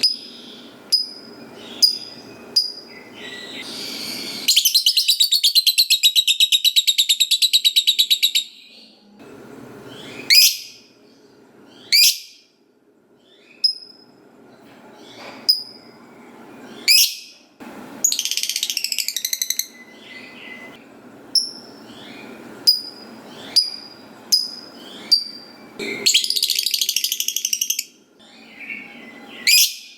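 Lovebird calling: single sharp chirps and quick upward squeaks, broken three times by a long, fast chattering trill (the 'ngekek' that fanciers prize), the longest lasting about four seconds.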